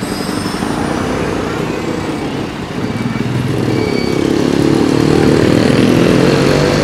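Street traffic: vehicle engines running close by, one rising in pitch and growing louder from about halfway through.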